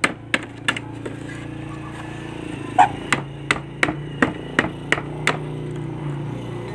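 Sharp wooden knocks of a hand tool striking and prying at the slats of a wooden crate lid to open it: four quick knocks, a pause of nearly two seconds, then a run of about eight more at roughly three a second. A steady low hum runs underneath.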